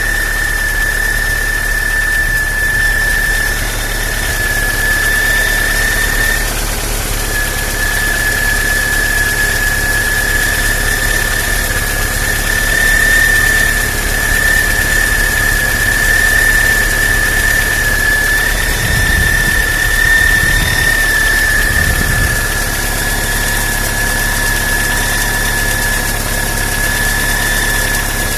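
Idling car engine with a steady high whistle from its water pump, holding one pitch and breaking off briefly about six seconds in, over the engine's low hum. The whistle comes from the pump's plain bearing, corroded by coolant leaking past the seal, though the shaft has no play. A few low bumps come about two-thirds of the way through.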